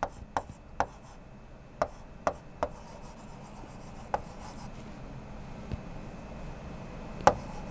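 Chalk writing on a blackboard: short sharp taps as the chalk strikes the board, several in the first three seconds, one about four seconds in and another near the end, between faint strokes.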